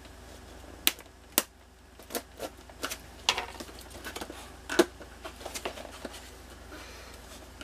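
Cardboard box of a shower head being handled and pried open by hand: scattered clicks, taps and short scrapes as the flaps and packaging are worked at.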